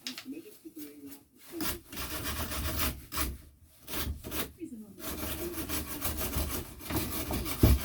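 Repeated back-and-forth scraping strokes of a hand tool rubbing on a hard surface, pausing briefly about halfway through.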